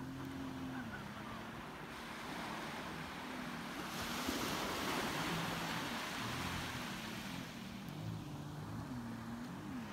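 A distant jet ski's engine running, its note dipping and rising several times as the throttle changes. Small waves wash onto the sand, swelling to a louder hiss midway.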